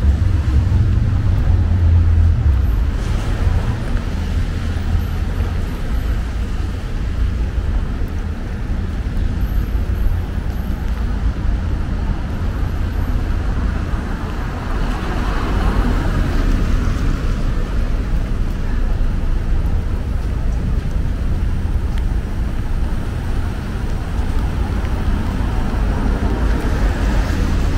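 City street traffic on rain-wet roads: a steady low rumble of cars, with one vehicle swelling past about halfway through and another near the end.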